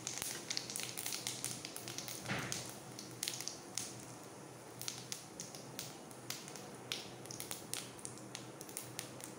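Cumin seeds crackling in hot oil in an aluminium kadhai: scattered small pops and ticks, with one duller knock about two seconds in.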